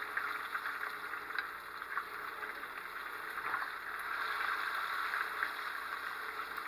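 Breaded catfish frying in hot oil in a skillet: a steady sizzle with small crackles, as the pieces are turned with tongs.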